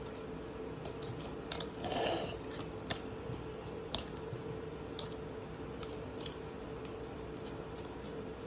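Trading cards being handled: soft rustling and sliding, with a short louder rustle about two seconds in and a couple of light clicks, over a steady faint hum.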